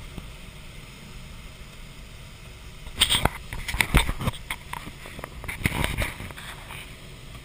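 Steady rush of air streaming past a glider's cockpit canopy in flight, with clusters of sharp knocks and rattles about three seconds in and again near six seconds.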